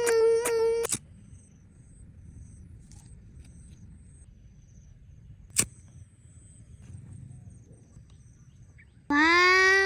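A baby crying in long, steady wails: one in the first second, then a sharp click near the middle, and crying again near the end. In between there is only faint outdoor background with thin high chirps.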